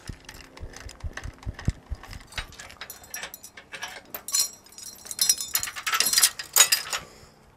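Metal hardware at a trailer hitch clinking and rattling as it is handled, with a string of sharp jingling clanks in the middle and near the end. A vehicle engine is idling faintly underneath.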